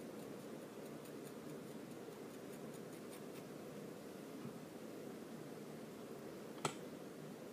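Scissors snipping a wig's bang, a run of faint quick snips in the first three seconds or so over a steady low room hum. A single sharp click near the end.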